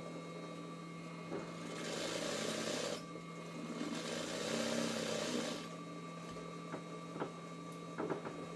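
RANEW 130 zigzag sewing machine stitching free-motion embroidery, running harder in two spells a couple of seconds in, then easing off. A few light clicks near the end.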